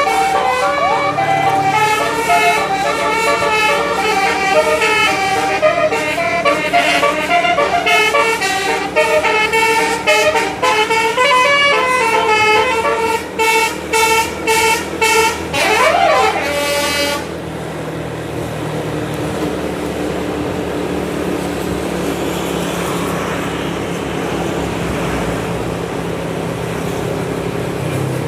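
Tour bus's 12-note basuri telolet horn playing a fast, shifting melody of high toots, breaking into rapid staccato toots and a pitch sweep that dips and climbs back, before it stops about seventeen seconds in. After that only the steady running noise of the vehicle remains.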